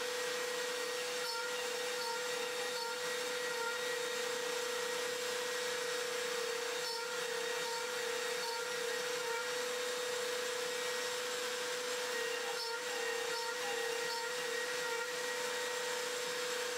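Makita trim router running as a CNC spindle with a steady high whine over a constant hiss, while the machine cuts insert holes into an MDF spoil board.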